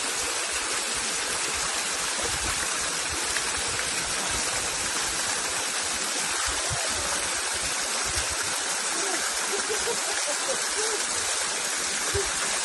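Stream flowing steadily, a constant rush of water.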